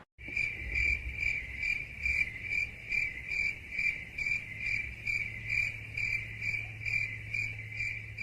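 Crickets chirping in an even rhythm, about two chirps a second, over a faint low hum: the classic cricket sound effect used in memes for an awkward silence.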